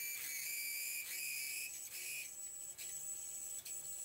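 Drill bit in a Tormach CNC mill's Jacob's chuck squealing as it feeds into an aluminium part: a high-pitched whistle of several tones, changing about two seconds in to a single thinner, higher tone. It is the sign of a misaligned drill, with the arbor separating from the Jacob's chuck, and it doesn't sound right.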